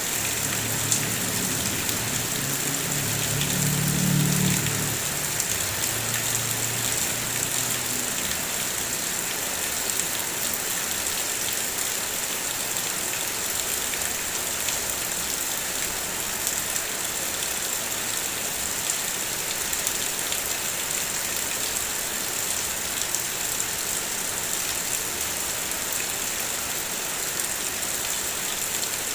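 Heavy rain pattering steadily on a car's body. A low rumble swells and fades over the first several seconds.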